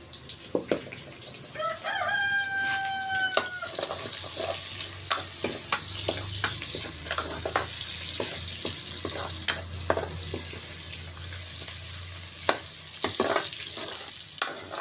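Sliced onions sizzling in hot oil in a black wok, stirred with a metal ladle that clicks and scrapes against the pan many times. A rooster crows once, a held call of about a second and a half, about two seconds in.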